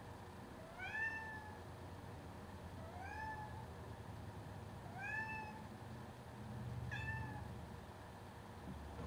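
A domestic cat meowing four times, about two seconds apart, each meow rising in pitch and then levelling off.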